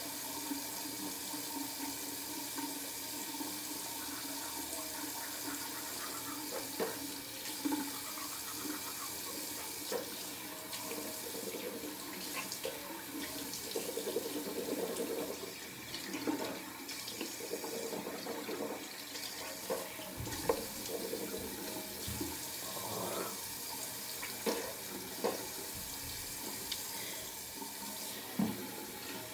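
Bathroom sink tap running steadily into the basin while someone brushes their teeth and bends to rinse at the sink, with occasional short knocks.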